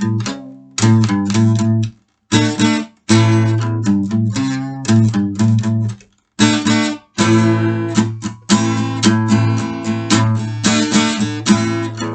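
Instrumental music: strummed acoustic guitar chords over a low bass line, with no singing. The band stops dead for a moment several times, about two, three and six seconds in.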